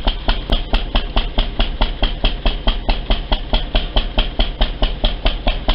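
Machine running with a steady low hum and regular sharp ticking, about five ticks a second.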